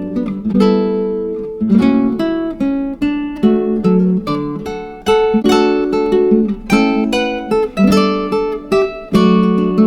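Background music of acoustic guitar, plucked and strummed chords at an unhurried, even pace.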